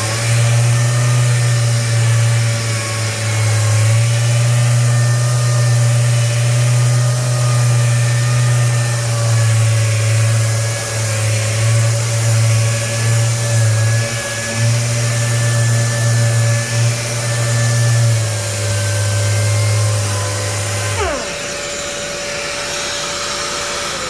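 Random orbital sander with an 80-grit 3M Xtract disc running against body filler, its hum wavering as the load changes, over the steady whine of a dust extractor. The sander switches off and spins down about three seconds before the end, leaving the extractor running alone.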